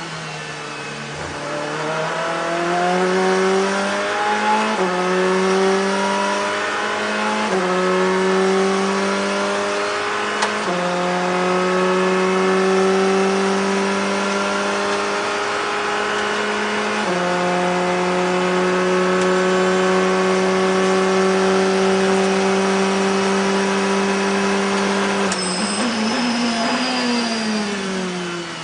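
Ferrari 488 GTE racing car's twin-turbo V8 at full throttle, heard from the cockpit, pulling up through the gears with a short dip in pitch at each upshift, the gears held longer and longer. About three seconds before the end there is a sharp click, then the engine note falls as the car brakes and downshifts.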